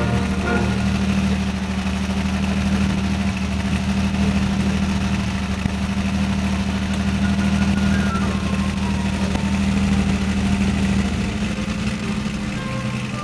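Vintage racing car engines idling steadily; about eleven seconds in, the lowest part of the engine note drops away and the sound changes.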